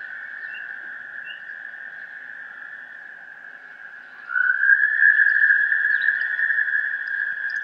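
A sustained high tone, steady in pitch, fading slightly and then, about four seconds in, sliding briefly upward and swelling louder.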